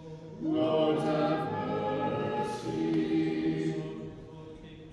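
Small choir singing a short Orthodox liturgical response in unaccompanied harmony: a held chord comes in about half a second in, moves once, and fades away near the end.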